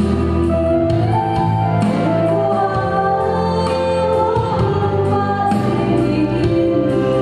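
Women's vocal group singing a gospel song through microphones, a lead voice holding long notes with the others joining, over a steady low accompaniment.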